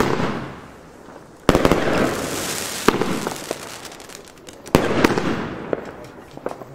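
Röder Alpha Centauri compound firework battery firing: four sharp bangs about one and a half seconds apart, each trailing off in a fading hiss.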